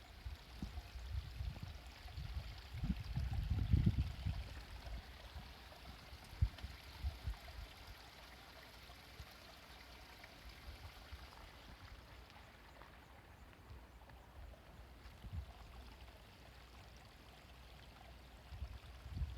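Steady outdoor rushing noise like running water, with gusty low rumbles over the first few seconds.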